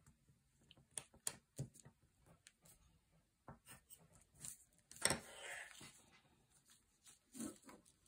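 Faint handling sounds of a tape measure, pencil and paper pattern on a table: scattered light clicks and taps, and a brief scratchy rustle about five seconds in.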